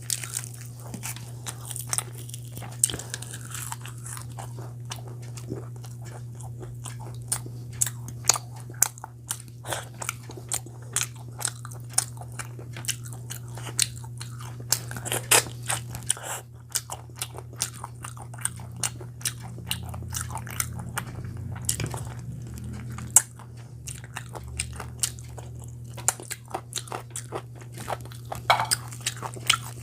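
Close-miked eating: a person biting and chewing chicken curry with puri, with many short, sharp mouth clicks and crunches, over a steady low hum.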